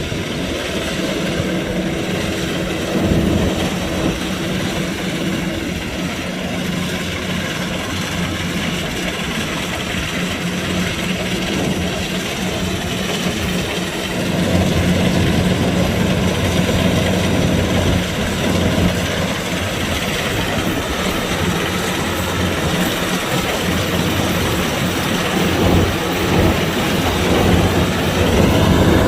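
Kubota DC-105X combine harvester running steadily, growing louder about halfway through.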